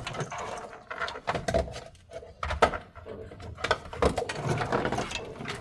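Irregular clicks, knocks and rustling of a car's wiring loom and plastic trim pieces being handled and pulled loose.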